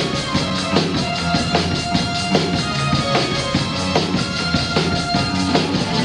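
A live rock band plays an instrumental passage of a synth-driven song: a steady, even drum-kit beat with bass guitar and held synthesizer tones.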